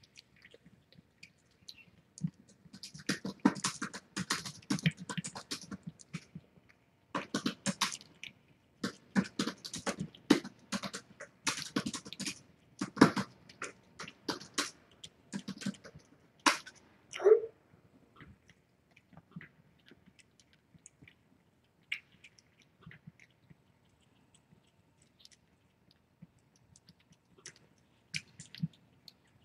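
Mother cat eating wet food from a stainless steel bowl: irregular wet chewing and lapping clicks in spurts over the first half, with one short falling squeak a little past the middle, then only scattered faint clicks.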